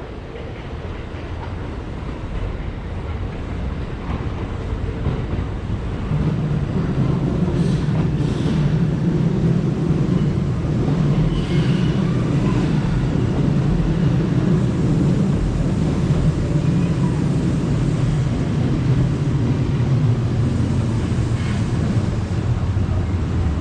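Kintetsu electric train running into the platform: a low rumble of wheels and motors that builds over the first six seconds and then stays loud, with a few short rail clicks.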